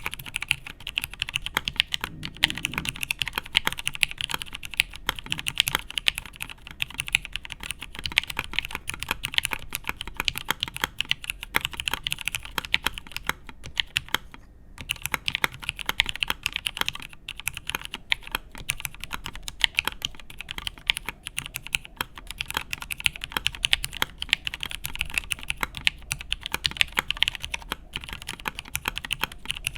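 Custom mechanical keyboard typed on at a fast, continuous pace: Hirose switches lubed with Krytox 205g0, with films, on an aluminium plate, under Cherry G81-3004 keycaps. Typing stops briefly about halfway through, then resumes.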